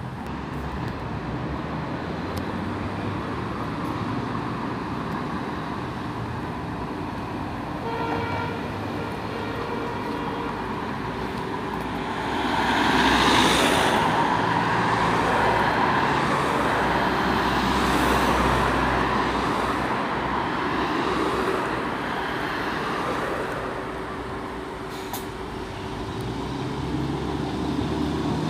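Road traffic with a short horn-like toot about eight seconds in. An articulated MAN Lion's City city bus then pulls up, loudest with a hiss about a third of the way through, and its diesel engine keeps running at the stop.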